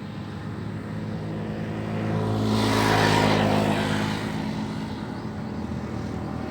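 A motor engine running steadily with a low hum, swelling louder about halfway through and then easing off a little, like a vehicle or boat passing.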